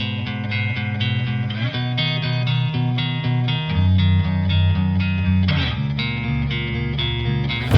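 Background music led by guitar over a bass line, with plucked notes in a steady rhythm.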